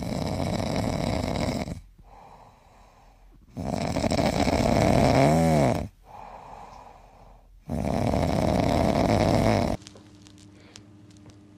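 A dog asleep on its back, snoring: three long, loud snoring breaths in, each followed by a quieter breath out, with a brief whistling wheeze in the middle of the second. The snoring stops abruptly near the end, leaving faint room sound with a few light taps.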